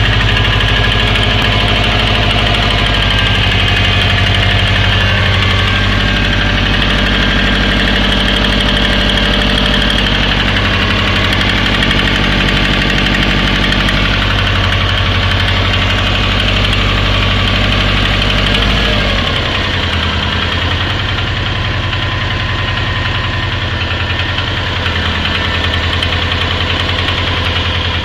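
Turbocharged Subaru EJ20 flat-four engine running with a steady, fast rhythmic knock, which the owner puts down to worn bearing shells. About two-thirds of the way in, the deep low rumble falls away while the knocking goes on.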